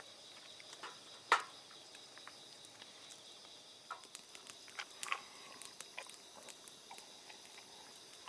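Quiet outdoor ambience with a faint steady insect chorus, broken by scattered small clicks and taps of eating utensils on a bowl, the loudest a sharp click about a second in.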